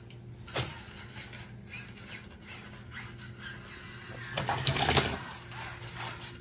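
Small RC monster truck's electric drive motor and gears whirring as it creeps up a plastic ramp, with a click about half a second in. A louder clattering stretch comes about four and a half seconds in as it rolls onto a row of die-cast toy cars.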